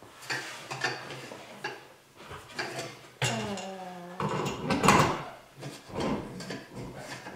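Knocks, clicks and scraping from a ceiling fan's motor housing being lifted and seated onto its ceiling mounting bracket, with a louder clatter about five seconds in. A short hum sounds a little past three seconds.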